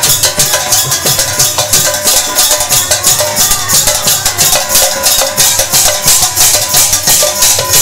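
Devotional kirtan percussion without singing: large brass hand cymbals clash in a fast, steady beat over a hand-played barrel drum, with a few held tones beneath.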